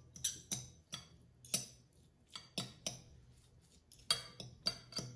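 Two metal forks clinking and scraping against a bowl as cooked chicken breast is pulled apart and shredded, in irregular sharp clicks, some close together in quick pairs.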